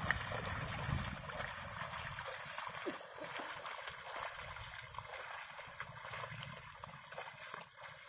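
Bullocks' hooves and a wooden plough splashing and squelching through a flooded paddy field: a steady wet sloshing of mud and water.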